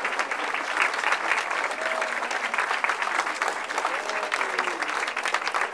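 Audience applauding: many people clapping steadily, with a few voices rising over the claps.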